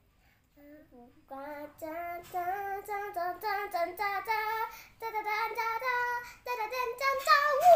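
A young girl singing a tune in held notes, starting about a second in, with a short break about midway.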